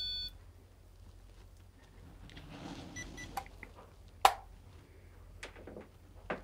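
Handheld EMF meter's steady high alarm tone cutting off just after the start. It then falls faint, with a couple of short soft beeps around three seconds in and a few sharp clicks or knocks, the loudest about four seconds in.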